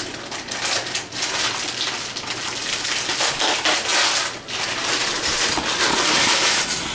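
Food sizzling in a hot pan: a continuous crackling hiss that swells and dips.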